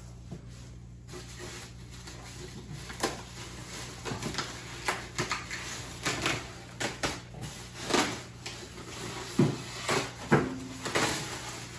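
Unpacking noise: cardboard box flaps and a foam packing tray with plastic-wrapped parts being handled and lifted out of a cardboard box. Rustling, scraping and a quick series of knocks and thumps, busier from about three seconds in.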